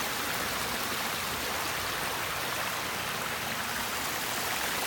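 Backyard pondless waterfall splashing steadily, water from two spillways pouring over rocks into a shallow pool.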